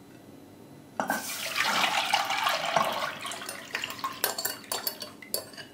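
Liquid egg-and-milk custard mixture poured from a glass bowl into a steel pot over set caramel: a splashing pour that starts suddenly about a second in and lasts a couple of seconds, then a string of sharp clinks as the wire whisk knocks against the bowls.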